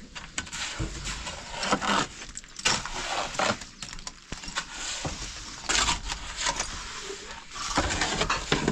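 Irregular scraping, clattering and knocking of construction work, with short noisy rasps and sharp knocks coming unevenly, about one to three a second.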